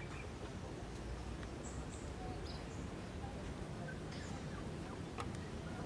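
Outdoor ambience: a steady low rumble with a few faint, short, high bird chirps scattered through it.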